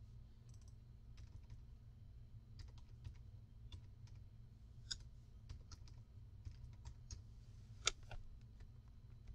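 Faint, irregular key presses on a computer keyboard as numbers are tapped in, with one sharper click about eight seconds in, over a low steady hum.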